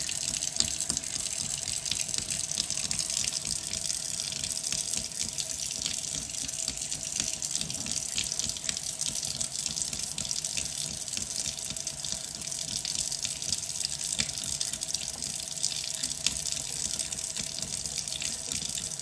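Kitchen tap running steadily in a thin stream into the sink, a continuous even splashing hiss.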